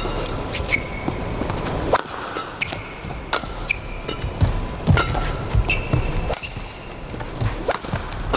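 Badminton rally: sharp racket hits on the shuttlecock about once a second, with the players' shoes squeaking briefly on the court between the hits.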